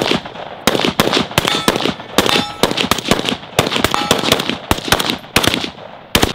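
Several firearms shooting at once in a rapid, uneven string of gunshots, about two to three a second and sometimes overlapping. A few shots are followed by a brief ringing tone.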